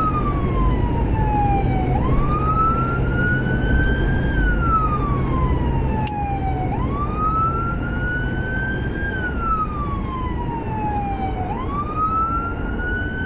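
Emergency-vehicle siren in wail mode: one tone rising slowly and then falling, about one full cycle every five seconds. A steady rumble of engine and road noise from the moving vehicle runs underneath.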